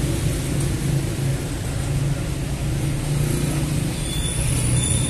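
Steady street traffic: car and motor engines running with a continuous low rumble and tyre noise. A faint high whine comes in about four seconds in.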